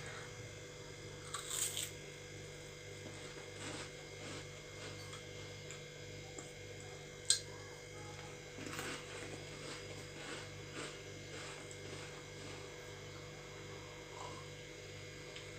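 Steady low electrical hum in a quiet room, with a few faint short noises and one sharp click about seven seconds in.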